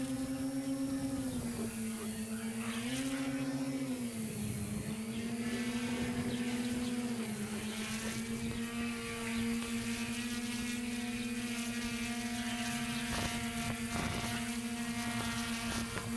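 Multirotor camera drone's electric motors and propellers hovering with a steady high buzzing whine; the pitch drops and rises a few times in the first few seconds as the throttle changes, then holds level while the drone climbs.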